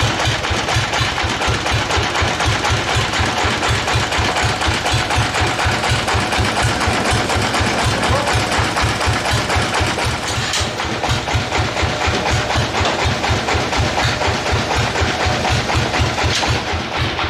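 Sawmill engine running steadily, with a fast, even low thumping under a broad mechanical din.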